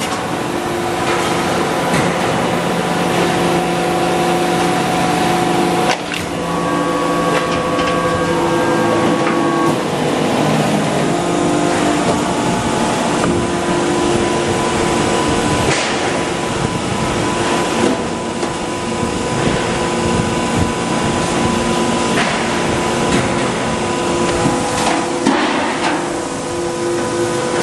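Factory-floor noise in a stainless steel sink press shop: steady machinery hum with scattered metallic knocks and clanks.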